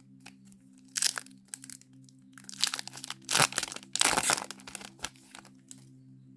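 Foil wrapper of a Yu-Gi-Oh booster pack crinkling and tearing as it is opened by hand, in several short rustles. A faint steady hum runs underneath.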